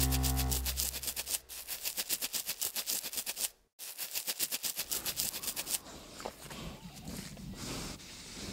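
Goldador puppy scratching fast at a plush blanket with its front paws, an even run of about eight scratchy strokes a second, broken by a brief dropout near the middle. Later it turns to snuffling, snorting breaths with its nose pushed into the blanket.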